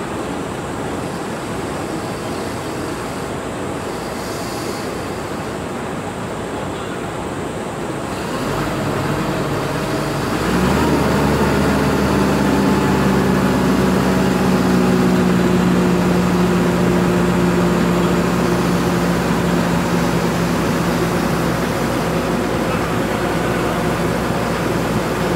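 Mobile crane's engine running under load while hoisting a steel truss. It steps up in speed and loudness about eight seconds in, then again about two seconds later, and holds a steady higher note after that.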